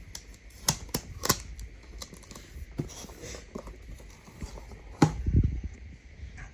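Scattered clicks and knocks from a cardboard box and its packaging being handled, with a heavier thump about five seconds in.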